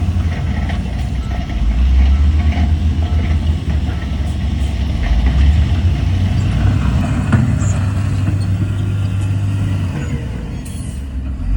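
Heavy diesel engine of earthmoving equipment running with a deep, steady rumble that swells and eases as the load changes, with a few faint knocks.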